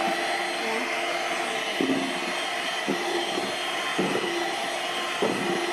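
Electric hand mixer running steadily at speed, its beaters whipping a thick egg-and-sugar sponge-cake batter, with a few brief light knocks along the way.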